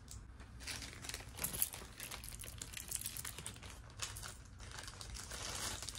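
Faint rustling and small scattered clicks of jewelry being handled: a plastic flower necklace with a metal chain lifted off a cloth, among plastic number tags.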